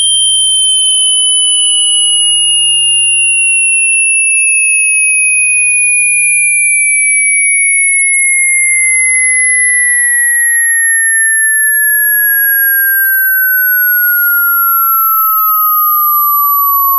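Two loud electronic sine-wave tones sounding together: a very high tone creeping slowly upward in pitch while a lower tone glides steadily down.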